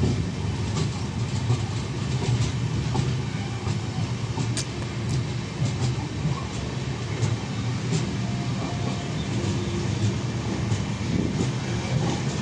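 Passenger train rolling along: a steady low rumble of wheels on rail, with a scatter of clicks and clacks as the wheels cross rail joints.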